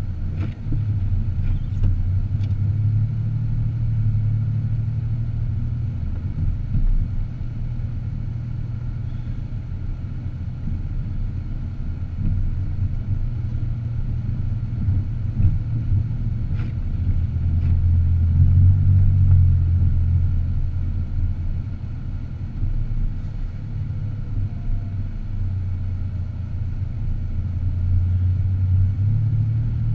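A car driving, its engine and road noise making a steady low rumble that swells a little just past the middle.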